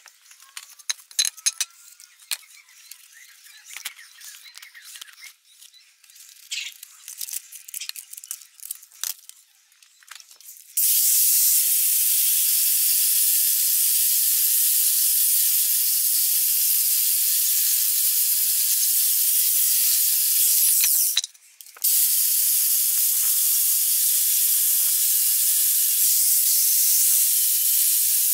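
Butane blowtorch flame hissing steadily, starting about eleven seconds in, cutting out for about half a second near the twenty-second mark and then resuming. Before it there are scattered light clicks and scraping handling sounds.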